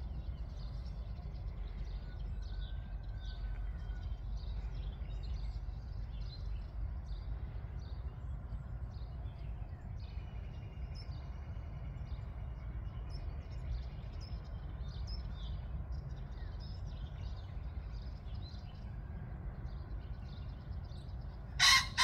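A pheasant gives one loud, short call near the end, over continuous chirping of small songbirds and a steady low rumble.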